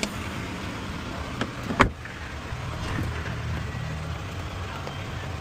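A newly cut car key being tried in a Toyota Echo's lock: a few sharp clicks, the loudest about two seconds in, over a steady low hum.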